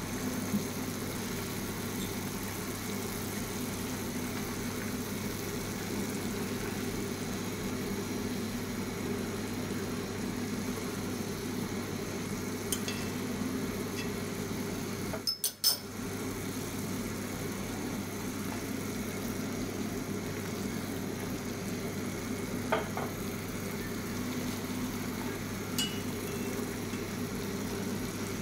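Steady hum and hiss of cooking on a stove, with a few light clinks of utensils against cookware. About halfway through the sound drops out briefly, with a sharp knock.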